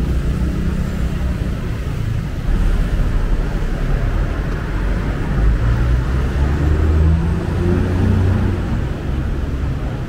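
Busy city road traffic: the engines and tyres of passing cars and motorbikes make a loud, low drone. It swells a couple of seconds in and eases toward the end.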